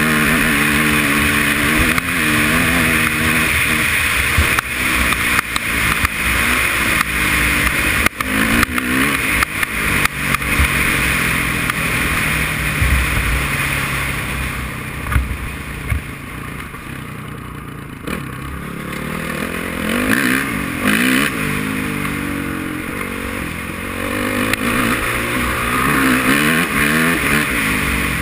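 Honda CRF450R dirt bike's single-cylinder four-stroke engine running under way, its pitch rising and falling with throttle and gear changes. About halfway through it eases off and goes quieter, then picks up and accelerates again near the end, with scattered light clatter.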